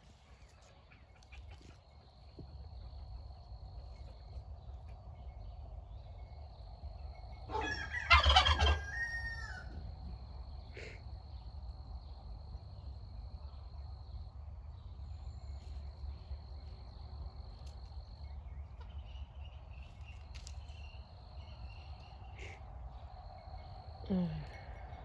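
A tom turkey gobbles once, a loud rattling call about eight seconds in, over a steady low rumble and a thin, steady high tone.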